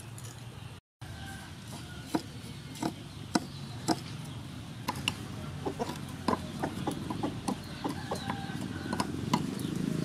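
Metal spoon clicking and scraping against a ceramic bowl while stirring coarse salt and ground pepper together: a run of sharp separate clicks that come thicker in the second half.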